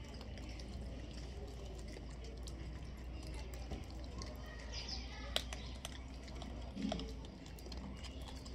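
Faint scattered clicks of small grains on a concrete floor as Hanuman langurs pick them up and eat, over a steady low hum, with a sharper click about five seconds in.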